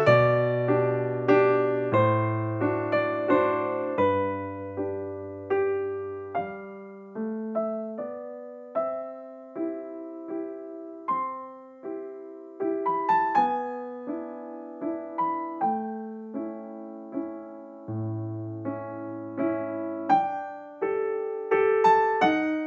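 Background piano music: a melody and chords of struck, fading notes over low bass notes.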